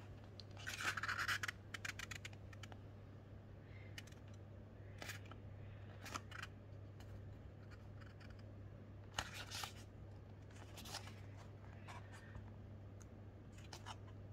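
Paper pages of a paperback book being leafed through. There is a longer rustle about a second in, then several short page flicks and rustles spread through the rest, over a faint steady low hum.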